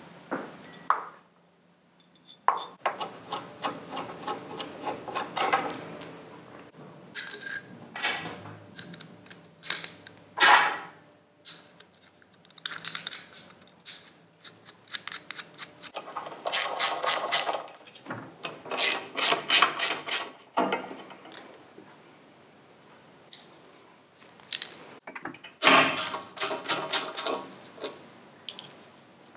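Socket ratchet clicking in quick runs, with steel parts clinking, as a motorcycle's front wheel, brakes and mudguard are unbolted.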